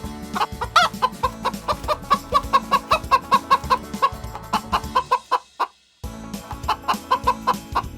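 Chicken clucking in a quick run of short clucks, about four a second, with soft background music. The clucking breaks off for a moment about six seconds in, then starts again.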